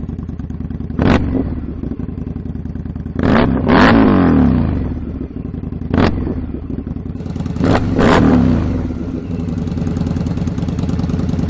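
Indian Scout's 1133cc liquid-cooled V-twin idling through its exhaust. The throttle is blipped several times, and each time the revs jump and then fall back to idle.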